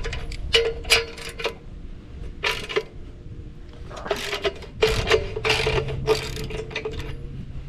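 Ratchet wrench worked in short strokes on the adapter's bolts, its pawl clicking in repeated bursts with a brief metallic ring. A low steady hum joins about two-thirds of the way in.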